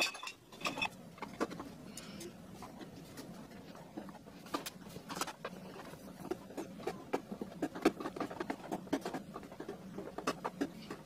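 Irregular light clicks, taps and knocks of plastic and metal coffee-maker parts being handled and fitted together by hand, over a faint steady low hum.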